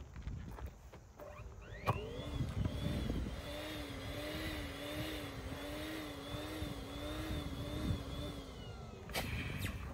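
Small electric balloon pump inflating a large latex balloon. It spins up about two seconds in, hums with its pitch wavering up and down about once a second, and winds down near the end.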